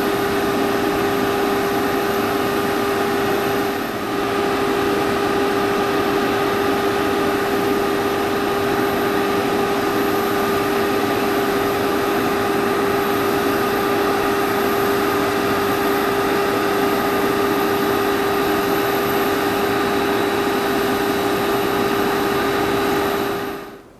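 A parked airliner's auxiliary power unit running steadily: a constant hum with a whine above it over a loud rushing hiss, which cuts off suddenly near the end.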